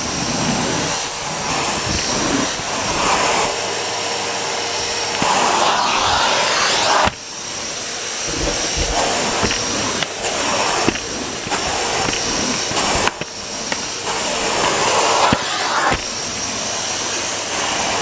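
Cylinder vacuum cleaner running steadily while its floor head is pushed back and forth over the floor. The airflow rushes louder and softer every few seconds with the strokes, over a faint steady motor whine, with a few light knocks of the head. The level drops suddenly about seven seconds in.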